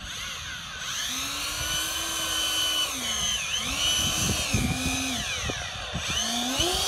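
Twin electric ducted fans of a Me 262 model jet whining as it taxis, spooled up and back down three times.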